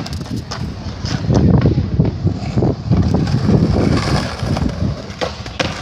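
Skateboard wheels rumbling over concrete, swelling twice, with several sharp clacks of boards striking the ground. Wind buffets the microphone.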